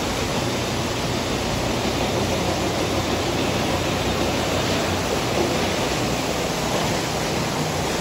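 White-water rapids of a rocky river rushing steadily over stones.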